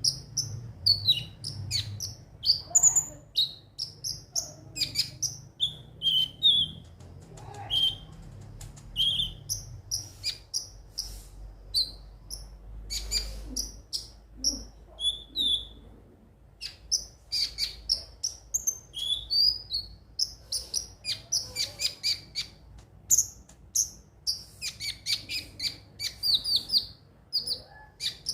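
Konin (kolibri ninja, a sunbird) chirping and twittering: a string of short, high, sharp notes, breaking into quick runs of rapidly repeated notes near the end.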